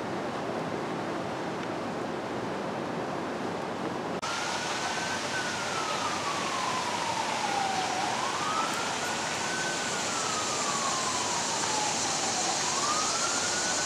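Emergency vehicle siren wailing, its pitch rising and falling slowly about once every four seconds. For the first four seconds there is only a steady outdoor hiss, and the siren starts abruptly after that.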